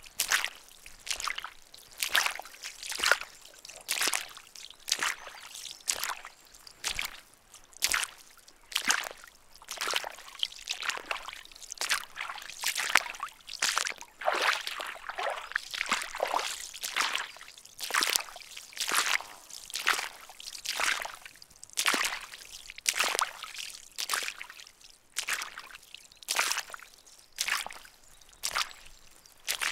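Footsteps walking through waterlogged marsh ground, each step sloshing and squelching in shallow water, at a steady pace of about one step a second, with water dribbling between steps.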